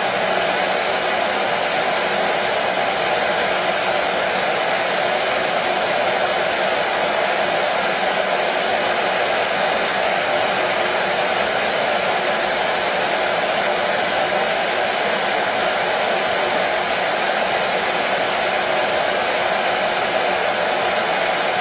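Washing machine running with a steady, even hum and rush of noise that does not change in level or rhythm.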